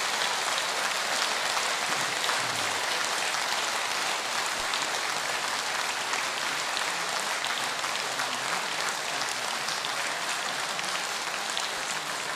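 Audience applauding loudly and steadily, a dense patter of many hands clapping.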